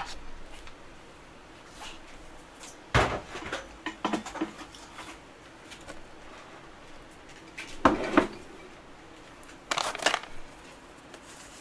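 Dishes being cleared: a tray holding a pan and a plate is lifted and carried off, then several separate clunks and knocks of dishes and a glass jar being set down, a few seconds apart.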